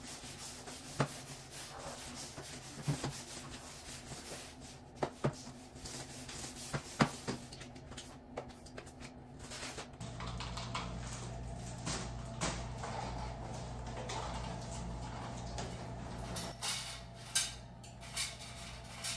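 Spray mop pad rubbing and sliding over a tiled floor, with a few sharp knocks and clicks along the way. About halfway through, a steady low hum comes in under the rubbing.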